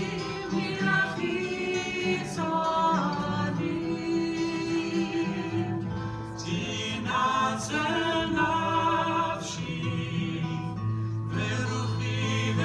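A group of cantors singing together, with long held notes, some sung with vibrato.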